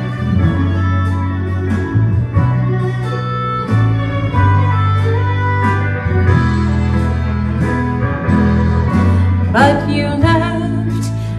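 Country music with plucked guitar over a steady bass line; a sliding lead line comes in near the end.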